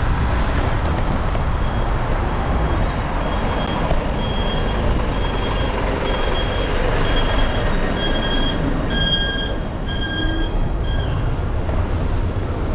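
A large Hyundai truck's warning beeper sounding a steady series of short beeps, about two a second, over the low rumble of its engine. The beeps start a second or two in and stop shortly before the end.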